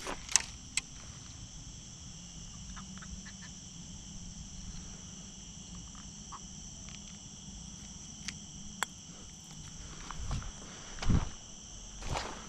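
Steady chorus of night insects such as crickets, a continuous high-pitched trill, with a few sharp clicks and some handling thumps near the end.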